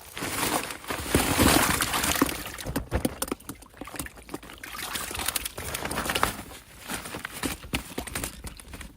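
Water sloshing and pouring as a keep net holding the day's catch of fish is hauled out of the water, loudest about a second or two in, then lighter splashing and dripping.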